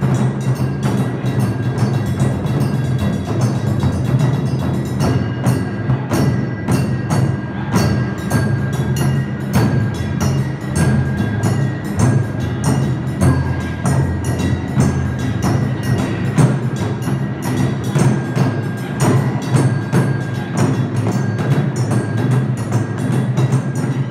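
Japanese taiko drum ensemble playing: large barrel drums struck with wooden sticks in a dense, fast, driving stream of strokes.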